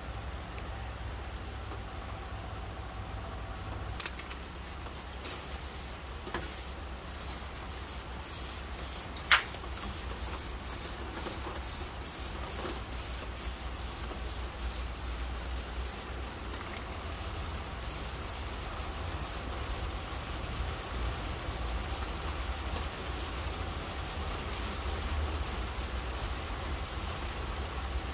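MTN 94 aerosol spray paint hissing from the can in many short bursts, about one to two a second, over a steady low rumble. There is a single sharp click about nine seconds in.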